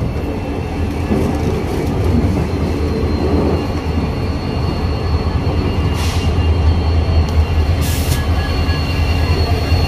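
Passenger train running on the rails, a steady heavy rumble of the coach and wheels, with two short hisses in the second half.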